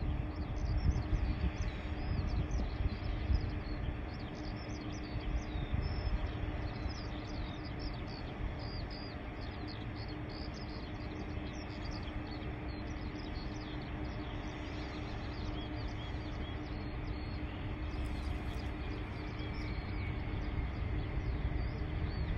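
Airbus A380 jet engines heard as a distant low rumble through its landing and rollout, growing louder near the end. Small birds chirp over it through much of the first half.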